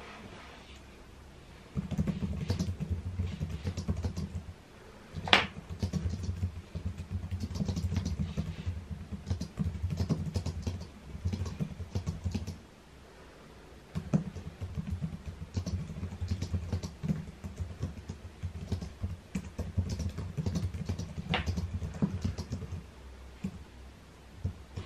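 Rapid typing on a computer keyboard, in two long runs with a short pause between them and a couple of sharper, louder keystrokes.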